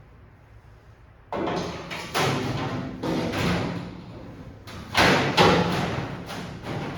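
Music with heavy thudding hits, starting abruptly about a second in; the loudest hits come near the two-thirds mark.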